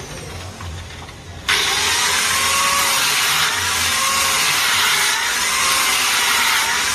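A chainsaw starts up loud about a second and a half in and keeps running, its engine pitch rising and falling about once a second.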